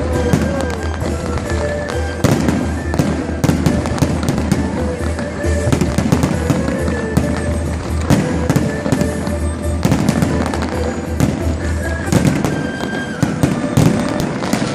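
Fireworks bursting in quick succession: a dense, irregular run of bangs and crackles, with music playing underneath.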